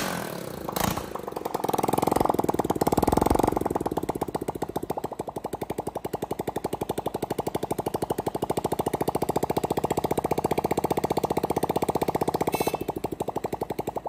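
Honda CG 125's air-cooled single-cylinder four-stroke engine running with its tappet cover off, a fast even beat of firing pulses. It is louder for a couple of seconds about two seconds in, then settles to a steady idle. The run is a check that the oil pump feeds the valve gear after a top overhaul.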